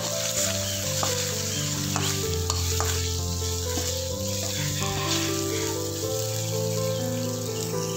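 Dried anchovies (ikan bilis) and aromatic paste sizzling in hot oil in a wok as they are stir-fried, with a metal spatula scraping and clicking against the pan now and then. Steady background music with long held notes plays underneath.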